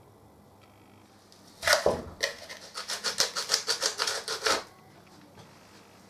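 Rapid scraping strokes on the freshly cast refractory lining, about four a second for a couple of seconds after one louder scrape, as set debris is worked loose.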